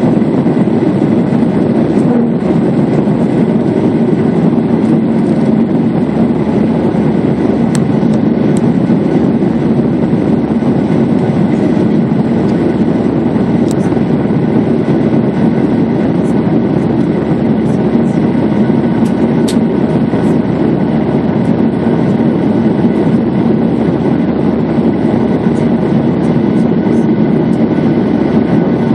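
Airliner jet engines and rushing air heard inside the passenger cabin during takeoff and climb-out. The result is a loud, steady, deep roar with a few faint, steady tones above it.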